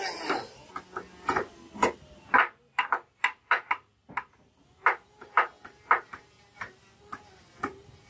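Hammer driving nails into timber: a run of sharp wooden knocks, about two to four a second in an uneven rhythm, with a brief pause about halfway through.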